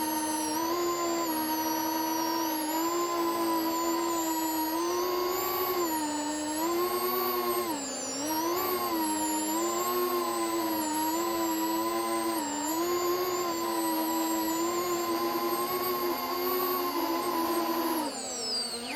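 FPV quadcopter's brushless motors and propellers whining steadily in flight, the pitch rising and falling with throttle changes. It dips clearly about eight seconds in and sweeps down near the end.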